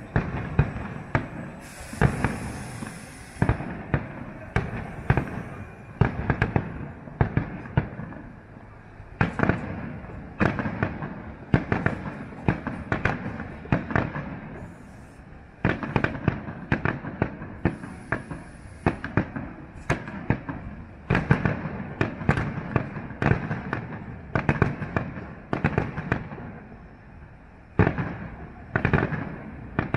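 Aerial fireworks display: a long run of sharp shell bursts, at times several bangs a second, over a steady rumble, with a brief high hiss near the start and again about two-thirds through.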